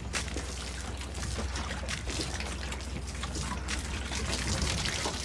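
Water trickling and splashing continuously over a steady low hum.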